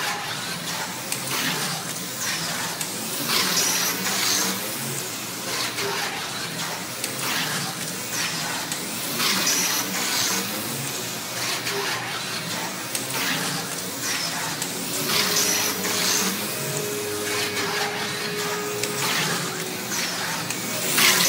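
Electric slot car running laps on a large routed slot-car track: the high whine of its small motor rises and falls as it passes close, loudest about every six seconds, over a steady rushing hum.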